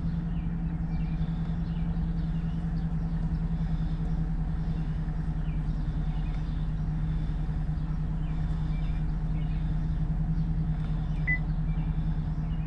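Chevy Silverado pickup's engine idling, a steady low hum heard from inside the cab.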